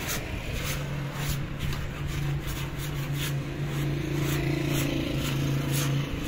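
Repeated short scraping strokes, about two or three a second, of a small hand tool scraping dried mud off a concrete floor. Under it a motor vehicle's engine hums steadily from just under a second in, fading out near the end.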